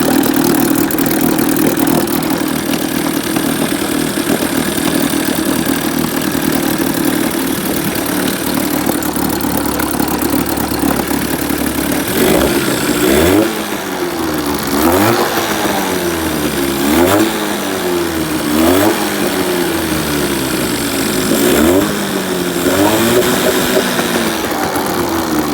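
Small outboard motor running after its stuck carburettor float bowl needle was freed, with the cooling water pump working. It idles steadily at first, then from about halfway is revved up and back down repeatedly, about every two seconds.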